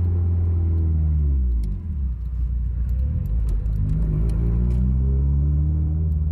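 2017 Subaru WRX's turbocharged flat-four engine running under way: a steady drone whose revs drop about a second and a half in, then climb again through the middle and settle.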